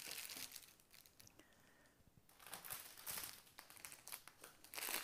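Plastic packaging crinkling and rustling as bags of diamond-painting drills are handled. There is crinkling at first, a short lull a little after a second in, and then the crinkling picks up again from about halfway.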